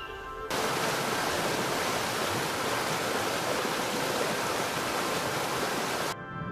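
Steady rushing water, an even hiss of a stream or waterfall sound effect that cuts in abruptly about half a second in and cuts off abruptly near the end.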